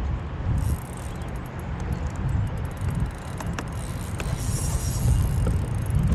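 Wind buffeting the microphone, an uneven low rumble, with a faint high hiss and scattered small clicks from about half a second in.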